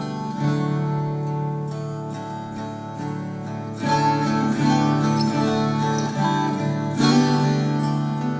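Acoustic guitar playing an instrumental passage with no singing. Its chords ring on and change about every three seconds.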